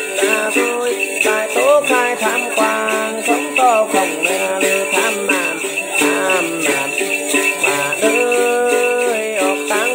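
A man singing Then, the Tày–Nùng ritual chant, with phrases that glide up and down, to his own plucked đàn tính, a long-necked gourd lute. A steady jingle of small bells runs underneath.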